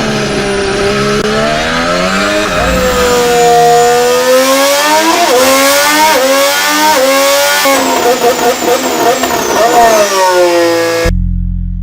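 Honda Formula One racing engine at high revs, its pitch climbing and then dropping sharply at each quick upshift, several times in a row. It then rises and falls through shorter revs before cutting off near the end into a low steady hum.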